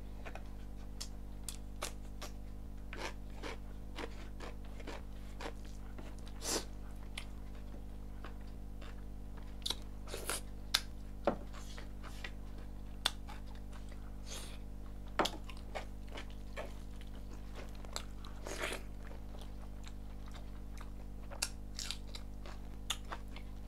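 A person eating rice and chicken by hand: chewing with scattered wet mouth clicks and lip smacks, a few of them louder, over a steady low hum.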